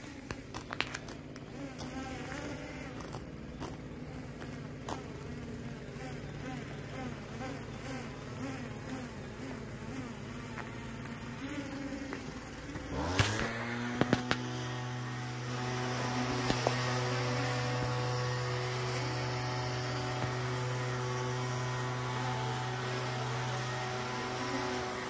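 Small quadcopter drones' motors and propellers buzzing overhead, the pitch wavering up and down with throttle. About halfway through the pitch rises sharply, then settles into a steadier, slightly louder buzz.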